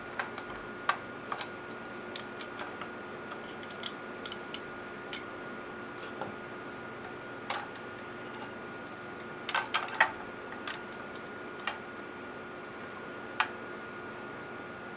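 Irregular sharp clicks and taps, as of hardware being handled, over a steady electrical hum with two faint constant tones; a quick cluster of louder clicks comes about ten seconds in.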